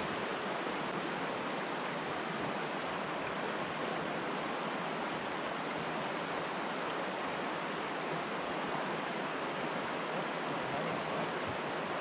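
Steady rushing of a fast river running over a stony bed.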